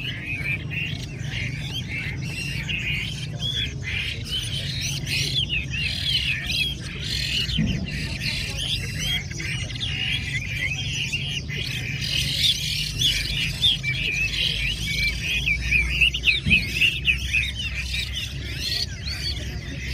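A chorus of many caged Chinese hwamei singing at once: a dense, unbroken tangle of quick rising and falling whistles, loudest a few seconds before the end, over a steady low rumble.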